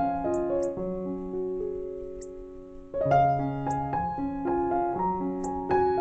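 Background piano music: slow phrases of held notes that fade to a quieter stretch, then a new phrase comes in about halfway through.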